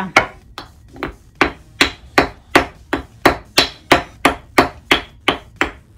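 A child's toy wooden hammer striking a block of wood over and over in a steady rhythm, about three blows a second.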